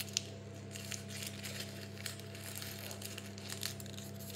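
A sheet of paper being crumpled up by hand, a continuous run of small crinkles and crackles over a steady low hum.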